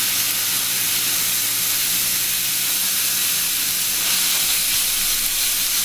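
Raw ground beef frying in hot oil in a cast-iron skillet, just added to the pan: a steady, loud sizzle.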